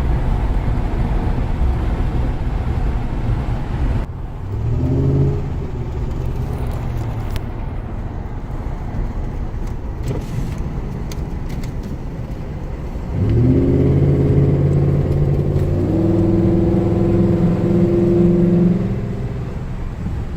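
Ford Crown Victoria Police Interceptor's 4.6-litre V8 running under way with steady road rumble. The engine is misfiring and knocking, which the driver takes for a badly running engine. Its hum rises briefly about five seconds in, and again louder for several seconds near the end as it pulls harder.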